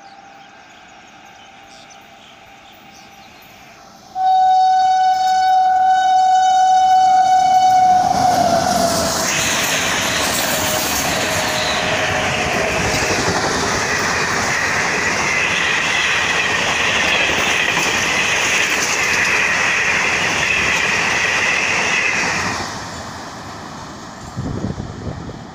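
A WAP7 electric locomotive's horn sounds one long blast about four seconds in, its pitch dropping as the locomotive passes. Then comes the loud rush and clatter of the Duranto Express's LHB coaches passing at speed, which drops away suddenly near the end.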